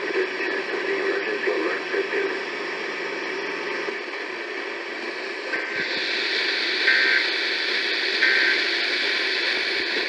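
NOAA weather radio receiver's speaker carrying a hissy broadcast with a faint voice early on. Then come three short data-tone bursts about a second and a half apart, the SAME end-of-message code that closes a Required Monthly Test, while the static hiss grows brighter.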